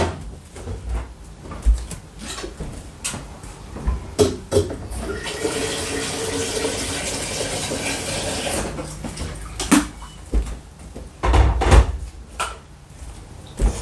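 Tap water running into a kettle to fill it for about four seconds, beginning about five seconds in. Knocks and clunks of things being handled come before and after.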